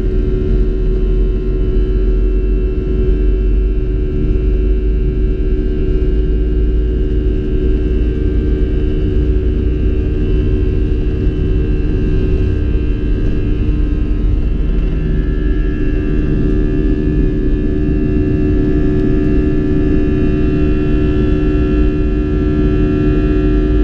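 Airbus A320 jet engines at takeoff thrust, heard from inside the cabin over the wing: a loud, steady roar with several droning tones on top, through the takeoff roll and liftoff.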